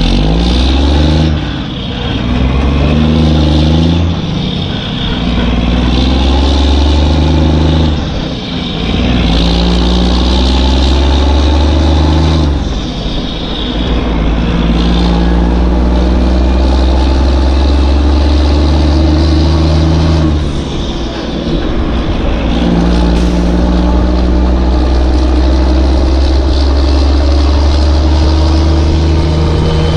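Heavy truck engine running under load, pulling through gears with a short dip at each change, then revving up slowly with rising pitch near the end.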